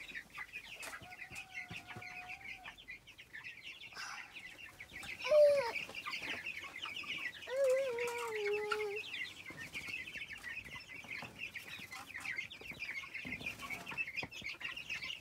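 A flock of young chicks peeping continuously in a dense, high chatter. A few longer, lower drawn-out calls sound over it, the loudest about five seconds in and another around eight seconds.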